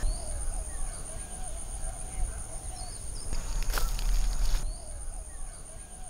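Outdoor ambience: a steady high-pitched insect drone, birds calling with a repeated warbling call and short chirps, over a low rumble.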